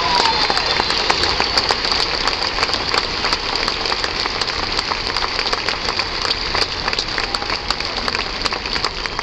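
Large stadium crowd applauding, a dense patter of many hands clapping that slowly dies down.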